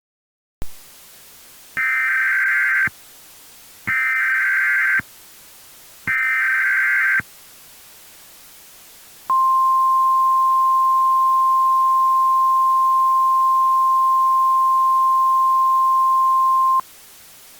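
Emergency Alert System tornado warning tones: three bursts of SAME digital header data, each about a second long, then a single steady 1050 Hz Weather Radio alert tone held for about seven and a half seconds. Together they signal the start of a tornado warning broadcast.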